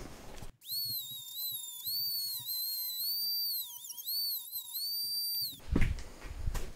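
A small high-speed rotary tool whining at a high pitch as it cuts. The pitch dips several times as the wheel bites and climbs back to a steady top speed as it runs free. It starts about half a second in and stops shortly before the end.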